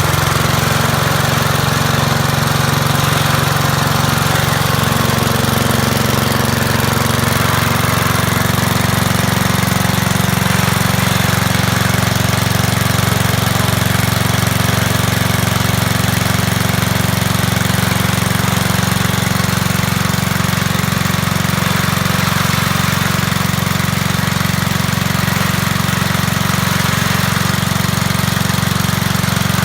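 Midland dive compressor's small petrol engine running steadily and evenly, freshly pull-started.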